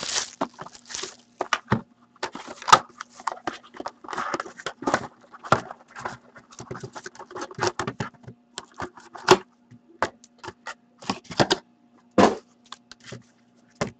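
Plastic shrink wrap crinkling and tearing as it is stripped off a sealed trading-card box, then cardboard and wrapped packs handled and set down on a table, in irregular rustles and light taps.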